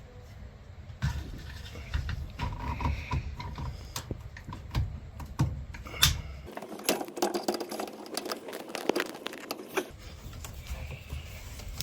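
Irregular small clicks and rattles of hands and pliers working a hose clamp off the drain pump's hose on a front-load washer. The clicking grows busier about halfway through.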